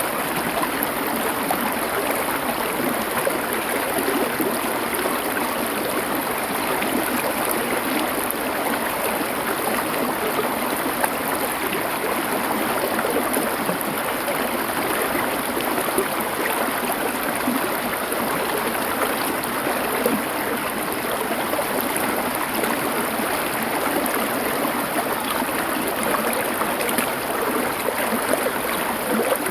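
Stream water flowing over stones, a steady, unchanging rush.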